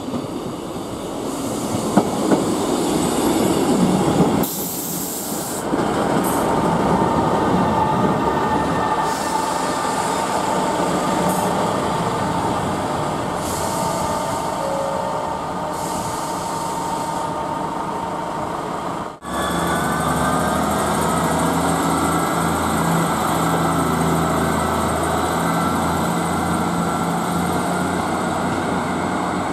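Class 158 diesel multiple unit running along the platform, its wheels rumbling on the rails with a thin steady squeal over it. After a sudden cut about two-thirds of the way in, its underfloor diesel engines run steadily with a low hum as it pulls away.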